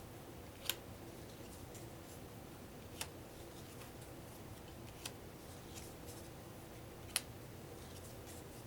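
Game cards being laid down or flicked one at a time, a sharp card snap about every two seconds, with a few fainter ticks between them.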